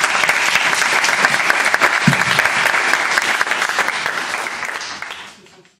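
Audience applauding, many hands clapping together, fading out near the end.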